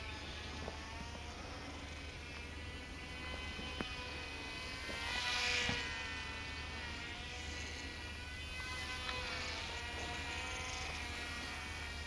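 The twin small electric motors and propellers of a Silverlit X-Twin Turbo-Fury RC plane buzzing in flight: a thin, high whine whose pitch drifts up and down as it circles. It is loudest about halfway through, as the plane passes close overhead.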